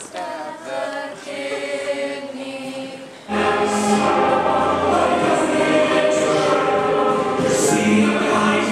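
Choir singing. A little over three seconds in, the music suddenly gets much louder as orchestra and band come in under the voices, with strong bass and repeated crashes.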